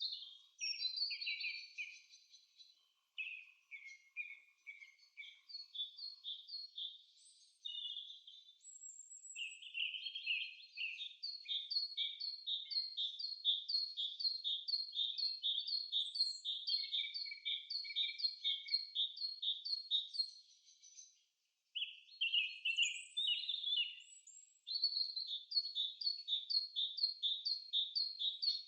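Bird song: long runs of quick, high repeated notes, each sliding downward, with a short pause about two-thirds of the way through.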